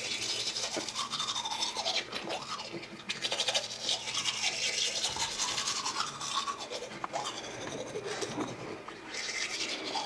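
Manual toothbrush scrubbing teeth: a continuous run of quick, scratchy brushing strokes.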